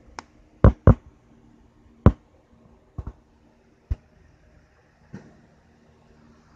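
A series of sharp, short knocks and taps at irregular intervals, about eight in all, the loudest a close pair under a second in, over a faint steady hum.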